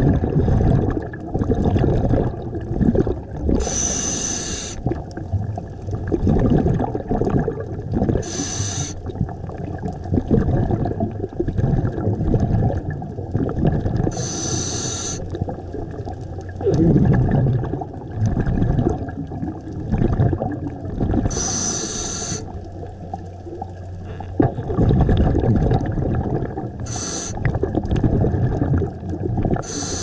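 A scuba diver breathing through a regulator underwater: six short hisses of inhaled air a few seconds apart, between long stretches of rumbling exhaust bubbles.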